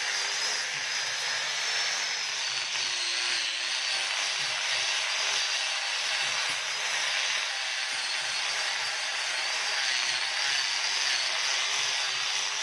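Electric power sander sanding wood: a steady abrasive hiss over the motor's whine, which wavers slightly in pitch as pressure on the wood changes.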